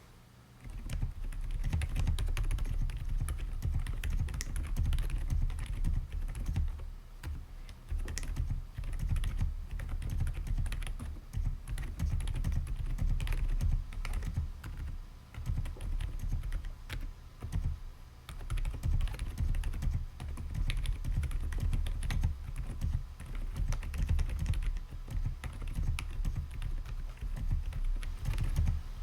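Continuous typing on an AULA F99 mechanical keyboard fitted with silent switches. The keystrokes come as soft, low thuds with little click, beginning about a second in.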